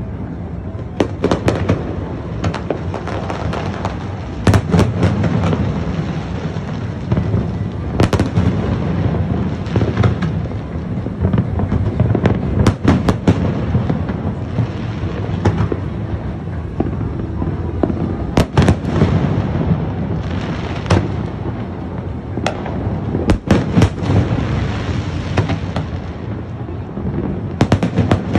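Aerial fireworks display going off in a continuous barrage: many sharp bangs at irregular intervals over a constant din of distant bursts.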